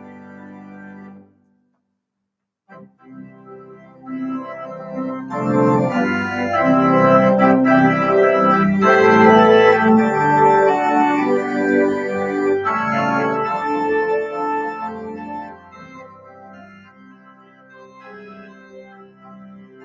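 Church organ playing sustained chords as closing music. The first chord cuts off about a second in, and after a short pause the organ starts again, swells louder through the middle and softens near the end.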